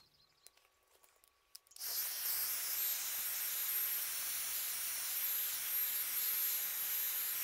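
Hand-held hair dryer switched on about two seconds in, then running with a steady airy hiss and a thin high whine as it blows over wet watercolour paint to dry it.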